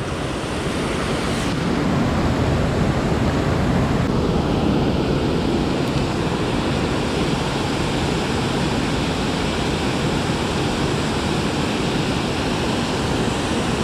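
Water rushing over a low river dam spillway and churning below it: a loud, steady, even rush of white water.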